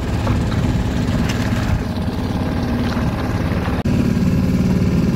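The yacht's engine running steadily, pushing the boat along under way, with a brief dropout about two-thirds through.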